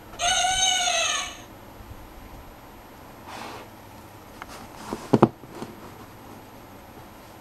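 The sound book's small speaker plays a recorded elephant trumpet call, about a second long, pitched and bending up then back down. About five seconds in, the cardboard board book is shut with a rustle and a quick double thump.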